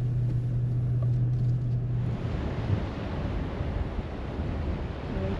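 A steady low drone inside a moving vehicle that stops abruptly about two seconds in. Wind buffeting the microphone follows, with the rush of surf.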